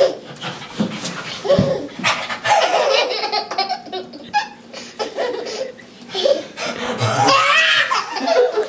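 Baby laughing in repeated bursts.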